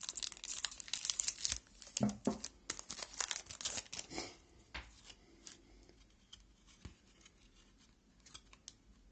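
Foil trading-card pack being torn open and crinkled, a dense crackle for about four seconds, followed by fainter scattered rustles and clicks as the wrapper and cards are handled.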